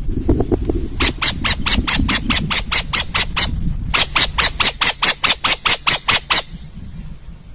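An owl calling in two rapid runs of short, harsh notes, about five a second, each run lasting two to three seconds with a brief pause between. A low rumble lies under the first half.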